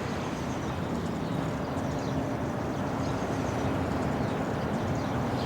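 Steady outdoor street ambience: an even hush of distant traffic with a faint low hum.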